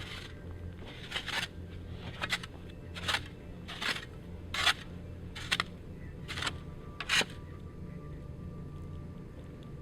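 Footsteps crunching in snow at a steady walking pace, about eight steps, stopping a little past seven seconds in.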